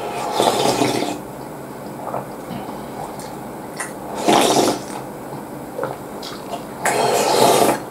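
Slurping ramen soup straight from the bowl: three long slurps, one at the start, a shorter one in the middle and one near the end.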